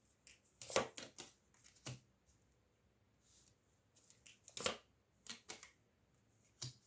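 Tarot cards being handled and laid on a table: a few short slaps and rustles, the loudest about a second in and again just before the halfway point.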